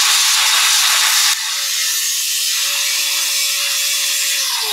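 Handheld angle grinder with a cutting disc slicing through a chrome-plated mixer extension sleeve, a loud continuous grinding hiss. About a second in it eases a little, a steady motor whine shows under it, and near the end the whine drops in pitch.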